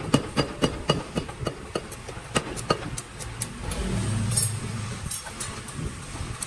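Mechanical power hammer striking a red-hot steel blade, about five blows a second, then a few single blows that stop about three seconds in. A low mechanical hum follows.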